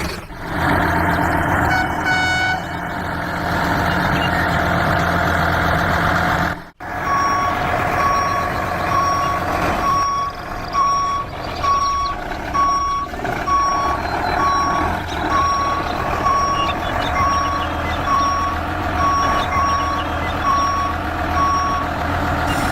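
A truck engine running steadily. About a third of the way in the sound cuts out briefly, then a reversing alarm beeps regularly, roughly one beep every 0.7 s, over the running engine.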